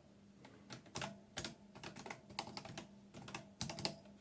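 Keys being typed on a keyboard: a string of short, uneven key clicks, a few a second, as a command is entered at a terminal.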